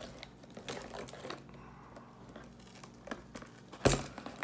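Rustling and small clicks of hands handling packaging and tools, with a single sharp knock near the end.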